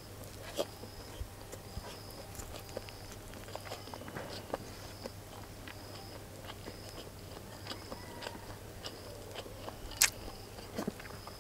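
Close-miked chewing and small wet mouth clicks of someone eating fried rice, with light taps of a wooden spoon; one sharper click about ten seconds in.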